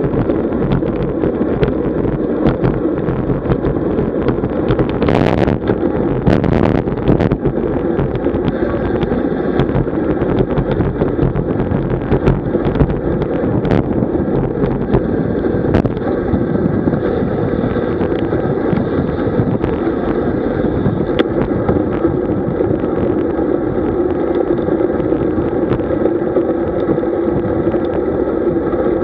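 Wind rushing over the microphone and road noise from a moving road bicycle, a steady loud rush. A few sharp knocks come about five to seven seconds in.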